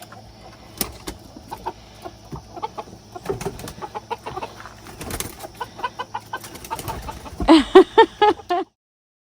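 Chickens clucking softly among scattered light taps and clicks. About seven and a half seconds in comes a loud run of about six quick clucks. The sound then cuts off suddenly.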